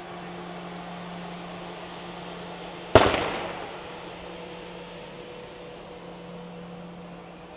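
TGV Atlantique trainset rolling past with a steady low hum. About three seconds in, one sharp bang rings out and dies away over about a second.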